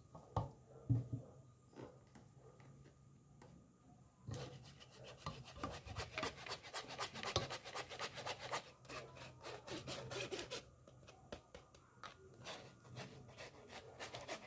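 Egg yolks being scraped through a fine mesh kitchen sieve: a few soft knocks at first, then quick rasping strokes from about four seconds in, with a short lull before they pick up again near the end.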